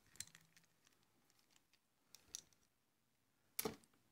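Faint clicks and light taps of a small socket tool and loose metal parts being handled on a small two-stroke outboard carburetor. There is a sharper tap near the end as a small nut is set down on a wooden table.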